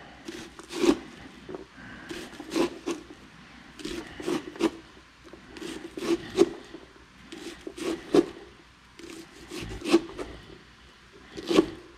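Kitchen knife slicing garlic cloves on a cutting board: irregular knocks of the blade striking the board, about one a second and sometimes two or three in quick succession, with light scraping in between.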